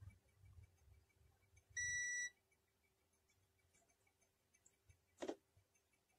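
A single high electronic beep lasting about half a second, about two seconds in, and a short click a few seconds later; otherwise near quiet.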